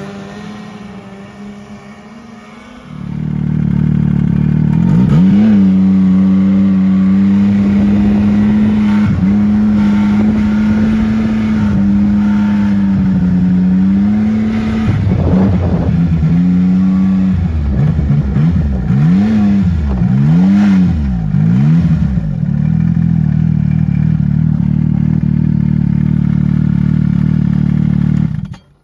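Yamaha Viper snowmobile's four-stroke engine heard close up. It eases off at first, then runs loud and steady from about three seconds in. Around two-thirds through its pitch rises and falls in several quick revs, then it holds steady until it cuts off suddenly near the end.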